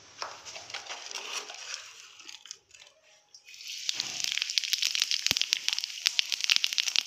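Whole spice seeds frying in hot oil in a kadai for a tadka: a soft sizzle at first, then, about three and a half seconds in, dense crackling and popping as the seeds spit in the oil.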